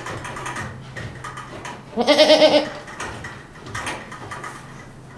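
A Boer goat bleats once, a loud wavering call lasting under a second, about two seconds in.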